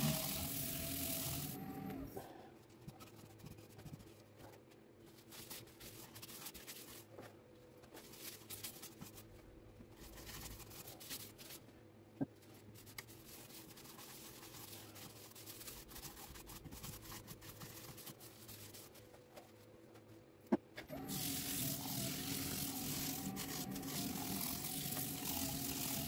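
Wood lathe running with a steady whine, spinning a pine bowl, and a hand pressing against the turning wood. It goes quiet about 2 seconds in, with only two sharp clicks, and is running again from about 21 seconds on, with a rag held to the spinning bowl.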